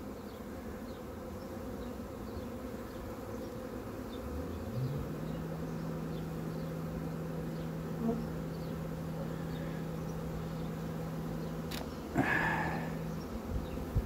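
Honeybee swarm buzzing steadily as the bees crowd on the ground and into a swarm box, with some flying around. A steady low hum comes in about five seconds in, and a short louder noise sounds near the end.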